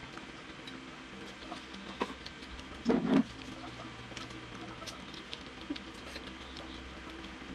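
Small clicks and scrapes of plastic forks in paper spaghetti boxes, along with chewing and table-top handling sounds from children eating. One short, louder burst comes about three seconds in.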